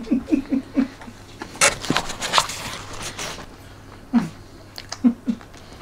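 A black plastic takeout tray is picked up and handled on a table, with a few sharp scrapes and clatters about two seconds in. Short low vocal sounds from a man come at the start and again near the end.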